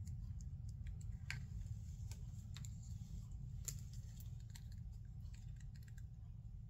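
Scattered light clicks and taps from handling a paint stick and a small plastic paint cup, over a steady low hum.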